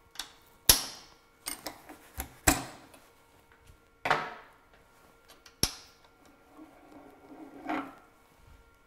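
Metal clanks and knocks of a lathe chuck being taken off the spindle and set down: about eight sharp strikes with a short ring, spread over several seconds, the loudest in the first few seconds.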